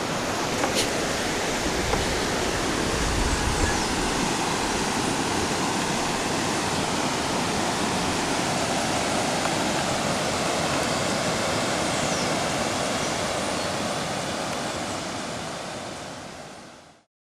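Rushing river water, a steady rush that fades out near the end.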